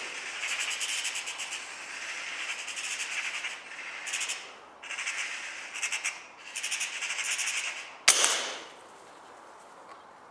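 Intro sound effects: several bursts of harsh, rattling chatter with short gaps between them, then a single sharp shot about eight seconds in that tails off.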